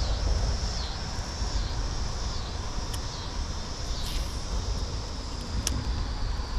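Wind rumbling on the microphone under a high, steady insect chorus that dips in pitch roughly once a second. Two sharp clicks about three seconds in and near the end.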